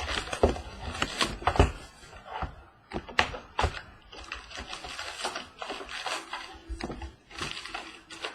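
Handling a sealed box of trading cards while it is unwrapped and opened: irregular rustling of packaging, with sharp taps and clicks of cardboard.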